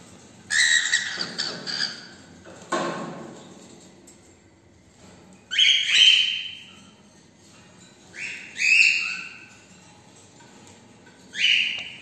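Cockatiels calling: four short bouts of loud, shrill squawks, with a harsher burst near the start and quiet pauses between the bouts.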